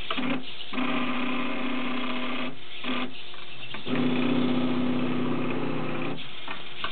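Meccano kumihimo braiding machine running: its motors and gearing whir in two stretches of about two seconds each, with short pauses and brief whirs between, as the braiding disc and thread arm are stepped round.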